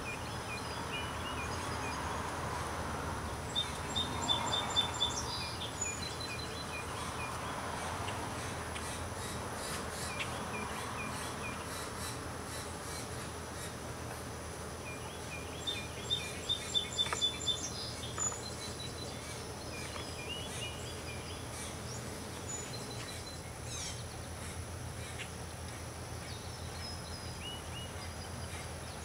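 Outdoor ambience of songbirds calling, with two runs of quick repeated high notes, about four seconds in and again about sixteen seconds in, and scattered single chirps. A buzzing insect passes over the first several seconds.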